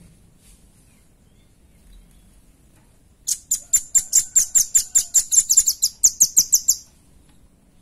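Velvet-fronted nuthatch calling: a fast, even trill of sharp, high chip notes, about six a second, starting about three seconds in and lasting about three and a half seconds.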